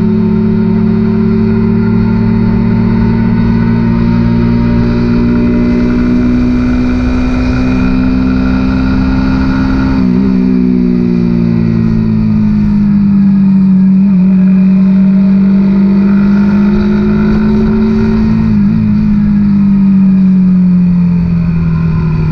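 Suzuki GSX-R150's single-cylinder engine running at steady cruising revs while riding. Its pitch slowly rises and falls, with a few brief dips.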